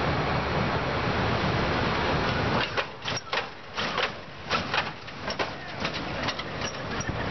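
Lowrider car's engine running low as the car rolls slowly past. After about two and a half seconds the rumble drops away, and an irregular run of sharp clicks and knocks follows.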